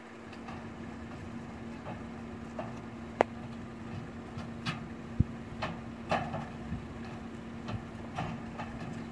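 An idling engine holds a steady low hum, with scattered sharp clicks and knocks at irregular intervals, including a low thud about five seconds in.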